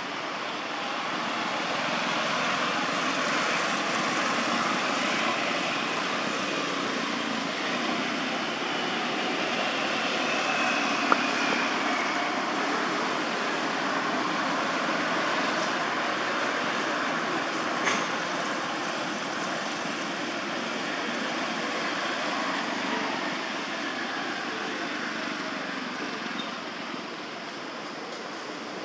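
Steady rushing outdoor background noise, with two brief sharp clicks, one about 11 seconds in and one about 18 seconds in.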